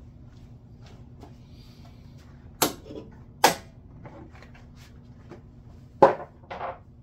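Plastic snaps and knocks from the Honda S2000's engine air box lid being unclipped and lifted off: two sharp snaps about two and a half and three and a half seconds in, and the loudest clack near the end with a softer knock just after, over a steady low hum.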